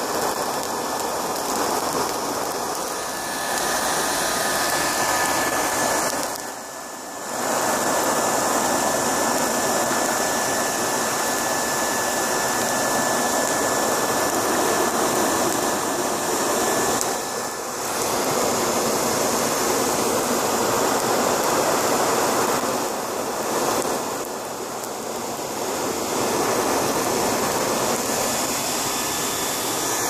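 A hair dryer blowing air into a homemade coal-fired forge furnace, a steady loud rush of blown air and fire with a thin steady whine from the dryer's motor. The rush drops off briefly three times.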